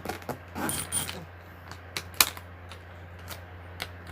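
Packed travel bag being handled: a brief rustling scrape about half a second in, then scattered sharp clicks and taps, the loudest about two seconds in.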